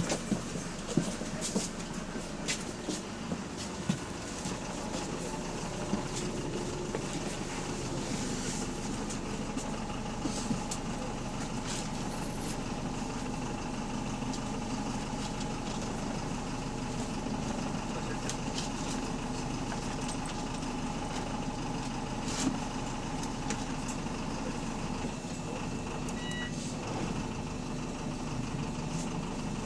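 Bus engine running steadily, a hum with several steady tones and a few sharp knocks; this bus's engine has a loud rod knock, typical of a worn connecting-rod bearing.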